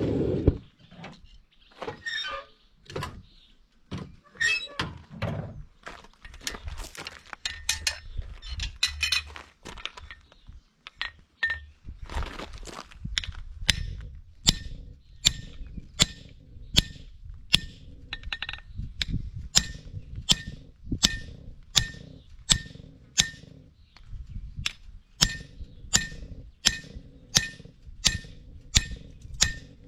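Farrier's hammer striking a steel horseshoe: irregular knocks at first, then a steady run of about two blows a second from about halfway in, each with a short metallic ring.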